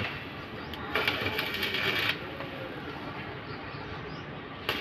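Stick-welding arc sizzling and crackling in short runs: a burst lasting about a second starting about a second in, and a brief one near the end, with quieter noise between.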